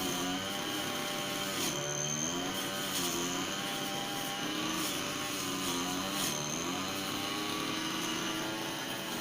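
Small two-stroke engine of a handheld brush cutter (grass trimmer) running at high speed, its pitch rising and falling every second or two as the throttle is worked and the cutter bites into hedge growth.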